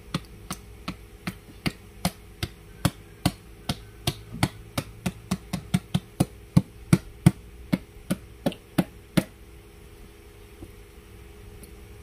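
Repeated sharp taps on an upturned carton of coconut milk, knocking the thick cream out of it, about two or three taps a second, stopping about nine seconds in.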